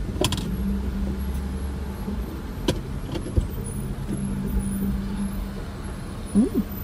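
A car engine idling, heard with the window rolled down, with a few sharp knocks. About six and a half seconds in, a child sneezes outside.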